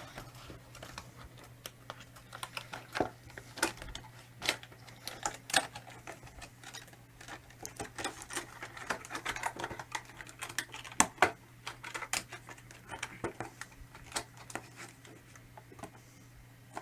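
Irregular light clicks and taps of small plastic fan parts and fittings being handled and unpacked, over a steady low hum.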